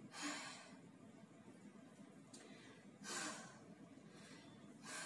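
A woman breathing hard after finishing a workout: three heavy breaths out, one at the start, one about three seconds in and one near the end, with quiet in between.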